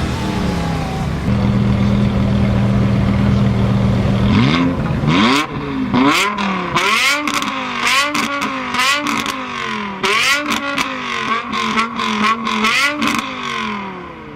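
Two performance-car engines, one of them a BMW E60 M5's V10, held at steady raised revs at the start line, then launching hard about four seconds in and revving up through the gears, each upshift a sudden drop in pitch. Near the end the pitch falls and the sound fades as the cars pull away.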